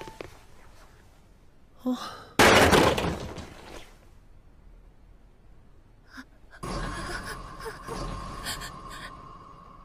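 A sudden loud crash about two and a half seconds in, dying away over about a second and a half. From about six and a half seconds in, a steady high ringing tone over a faint noisy background.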